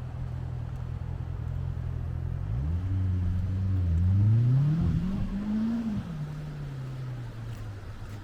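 An engine running low and steady, then revving up from about two and a half seconds in, its pitch climbing in steps to a peak and dropping back near the end.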